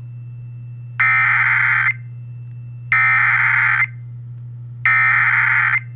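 Three one-second bursts of Emergency Alert System SAME header data, a harsh digital warble between two tones, each followed by about a second's pause. A steady low hum runs underneath.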